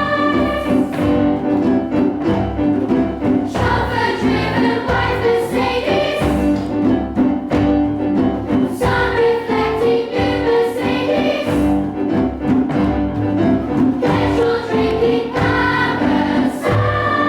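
A choir singing, music with held chords.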